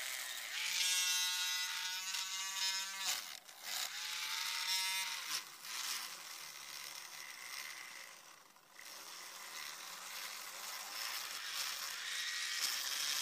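Small handheld rotary tool spinning a polishing wheel charged with Pikal metal polish against the wheels of a KATO EF81 model locomotive. A motor whine, briefly broken, sags in pitch about five seconds in and gives way to a steady rasping polishing noise.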